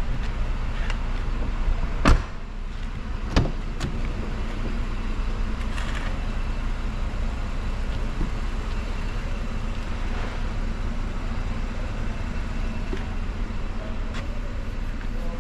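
A 2011 Mercedes-Benz E300's 3.0-litre gasoline engine idling with a steady low hum. Two sharp car-door thuds come about two seconds in and again a second later.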